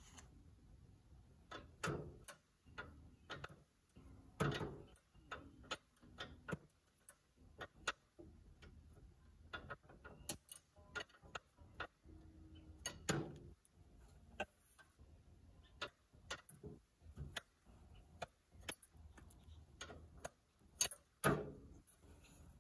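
Irregular clicks and knocks, some light and a few louder and fuller, at uneven intervals with no steady rhythm.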